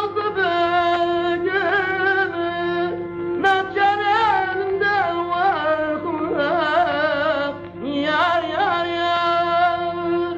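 Music in a Middle Eastern style: a single ornamented melody with vibrato and sliding notes, held over a steady low drone.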